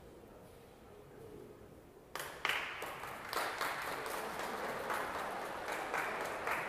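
Audience applauding, starting suddenly about two seconds in and continuing as steady clapping, greeting the end of a horse's dressage test.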